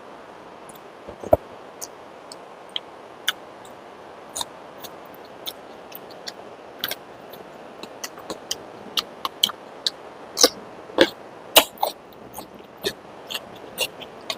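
Close-miked eating sounds: sharp wet mouth clicks and smacks of chewing, scattered at first and coming several a second in the second half, over a steady background hiss.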